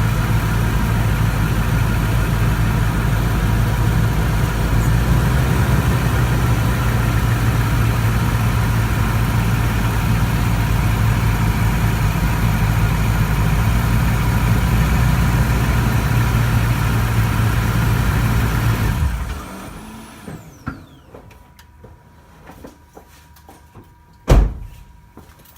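2014 Toyota Tundra pickup running steadily, then shut off about 19 seconds in, with a high whine falling away as it stops. A few faint ticks follow, then one sharp, loud knock near the end.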